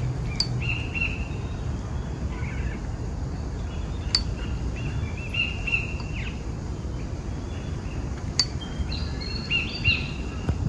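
Birds calling in mangroves: short chirping phrases repeated in four groups, over a steady low rumble. Two sharp clicks, about four seconds apart, stand out near the middle and later on.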